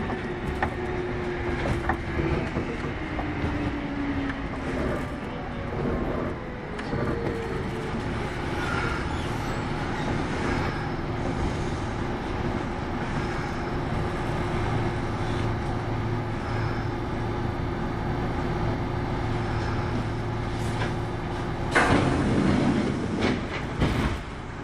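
Running sound of a Kintetsu 8810-series electric train heard from inside the car: a steady wheel and track rumble, with a motor tone falling in pitch over the first few seconds. A loud burst of noise comes about 22 seconds in.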